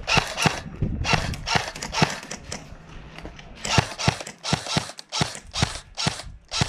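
Footsteps crunching on gravel or dry ground at a steady walking pace, about two steps a second, with a short pause near the middle.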